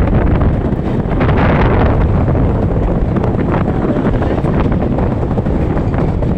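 Strong wind buffeting the microphone, a loud low rumble that swells in gusts, with the sea faintly under it.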